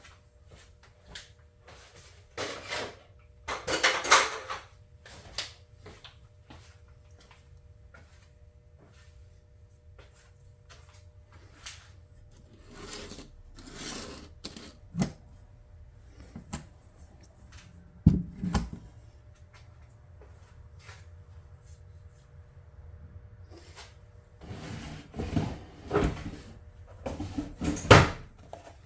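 Hand tools being handled and put away on a workbench: scattered, irregular clicks, knocks and clatter, with louder bursts of rattling about four seconds in and again near the end, over a faint steady hum.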